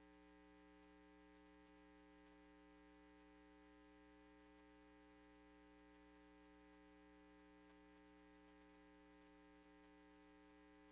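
Near silence with a faint, steady electrical hum made of several constant tones over light hiss.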